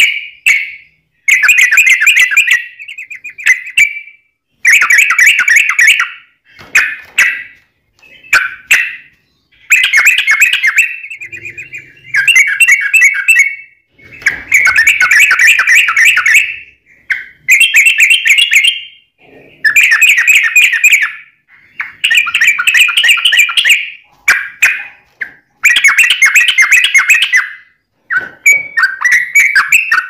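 Yellow-vented bulbul (trucuk) singing loud, rapid warbling phrases, each about a second and a half to two seconds long, repeated one after another with short pauses, about a dozen in all.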